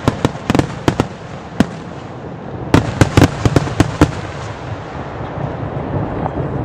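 Aerial fireworks going off: a rapid string of sharp bangs in the first second, a single bang at about one and a half seconds, and a quick cluster of about eight bangs between about three and four seconds in. After that the noise settles into a steady background din.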